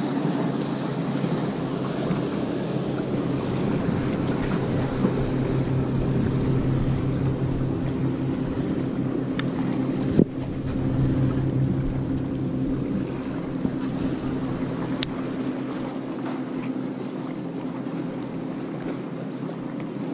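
A motorboat engine drones steadily over the hiss of water and wind. A single sharp knock comes about ten seconds in.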